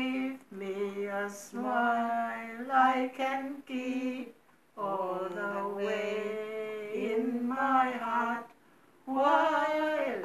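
A woman singing a slow, unaccompanied melody in long held phrases, breaking off briefly about four seconds in and again a little after eight seconds.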